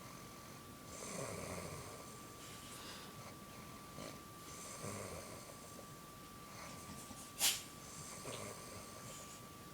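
Someone asleep snoring in slow, regular breaths, about one snore every three and a half seconds. A short, sharp noise about seven and a half seconds in stands out above the snores, over a faint steady high whine.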